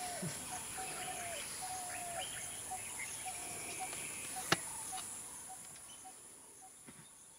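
Outdoor forest ambience: birds calling with short repeated whistles and chirps over a steady high hiss, with one sharp click about four and a half seconds in. The sound fades away over the last couple of seconds.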